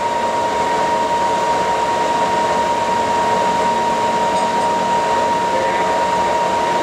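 Metal lathe running steadily with a constant high whine while its single-point tool, power-fed along the leadscrew, takes a ten-thou threading pass on a shaft.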